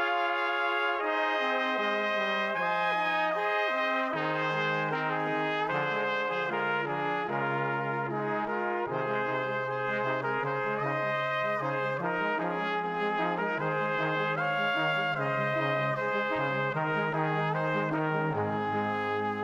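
Background music from a brass ensemble of trumpets and trombones, playing slow, sustained chords that change about once a second over a low line that steps down and back up.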